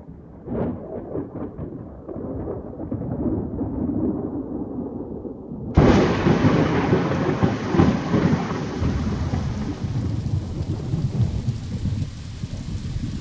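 Thunderstorm: low rolling thunder over rain, with a sudden loud thunderclap about six seconds in that dies away into steady rain.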